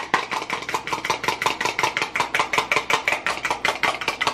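A raw egg being beaten in a glass bowl, the utensil striking the side of the bowl in a fast, even clatter of about eight clicks a second.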